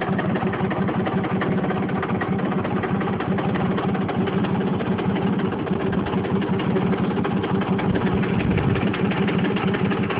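Simson Star moped's 50 cc single-cylinder two-stroke engine idling steadily, with no revving.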